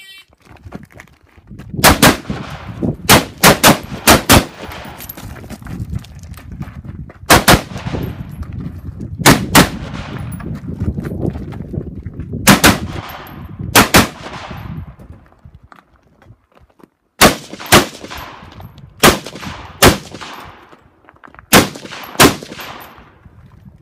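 Rifle shots from a competition course of fire: about twenty shots, mostly fired in quick pairs, with pauses of one to three seconds between groups and one longer pause about two-thirds of the way through.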